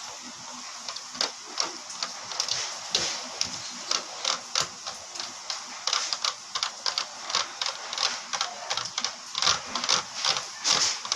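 Glue-and-detergent slime being stirred and mixed in a plastic box: a quick, uneven run of sticky clicks and squelches, several a second.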